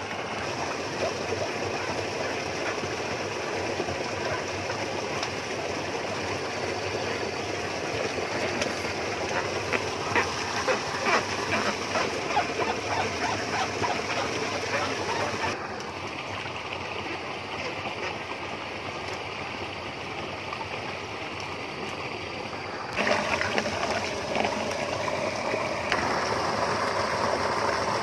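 Water splashing and running in a shallow pond, with a cluster of sharper splashes about ten seconds in. The sound changes abruptly a few times.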